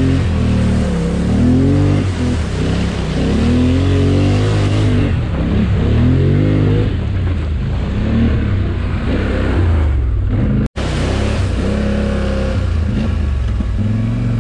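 ATV engine revving up and down under throttle as it churns through a mud hole, with a wash of mud and water spray over it in the first few seconds. The sound cuts out for an instant about two-thirds of the way through.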